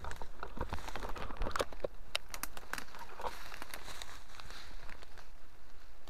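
Footsteps and brush-pushing through dry leaf litter, grass and twigs: irregular crackling and rustling that thins out near the end.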